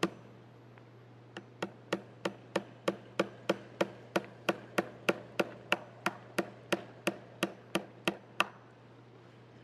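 Hammer driving metal fence staples into a wooden fence post to fasten wire fencing. It strikes about twenty times in a steady rhythm of roughly three blows a second, then stops near the end.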